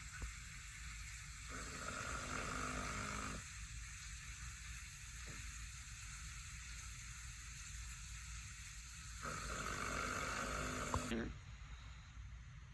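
Sleeping puppy snoring: two drawn-out snoring breaths, each about two seconds long and several seconds apart, over a steady hiss.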